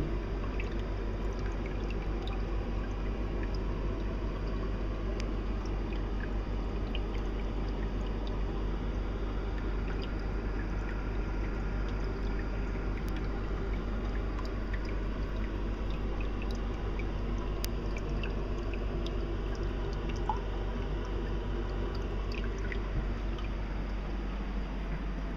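Aquarium water running steadily, an even trickling and pouring with a few faint drips, over a low, steady electrical hum.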